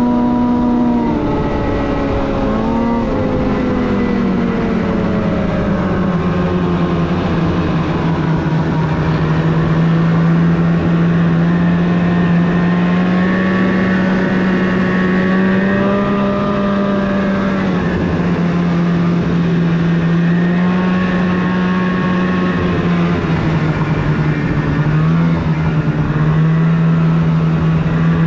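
Snowmobile engine running under way. Its note drops about two seconds in, then holds fairly steady with small rises and falls in pitch.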